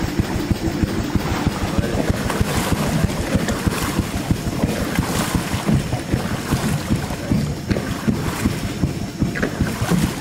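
A river boat under way, with water rushing and splashing along the hull at the bow, and wind buffeting the microphone in a steady low rumble.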